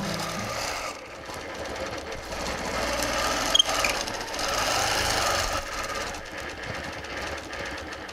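Longarm quilting machine running and stitching steadily as its hopping foot is guided along an acrylic ruler, with a single sharp click about three and a half seconds in. The machine stops near the end.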